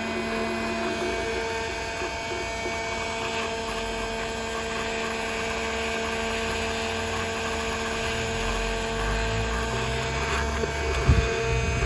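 A heat gun runs steadily with a motor hum while it warms the aluminium crankcase to loosen a crank bearing. Near the end the hum stops and there is one sharp knock.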